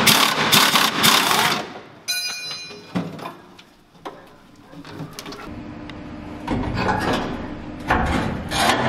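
Clanking and scraping of rusty truck parts being worked loose and handled during disassembly, including a heavy steel bumper dragged near the end, with a brief ringing tone about two seconds in.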